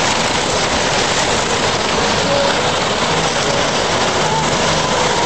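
Tsunami floodwater rushing through a row of wooden houses and tearing them apart: a loud, steady roar of water and breaking debris.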